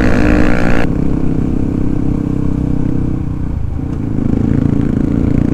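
Yamaha WR155R's single-cylinder four-stroke engine running on the road. The throttle closes under a second in, and the bike runs low and steady as it slows, picking up again a little after four seconds.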